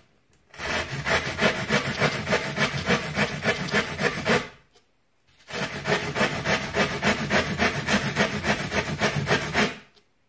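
Surform rasp shaving the edge of a rigid foam-board bulkhead in quick back-and-forth strokes, about four a second, in two bouts with a short pause about halfway through. The bulkhead is being filed down to fit the hull.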